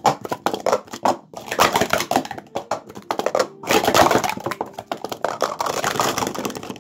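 Speed Stacks plastic sport-stacking cups clattering on a StackMat in a fast, dense run of clicks and clacks as they are stacked up and brought down during a timed cycle. The clatter starts suddenly and stops just before the end.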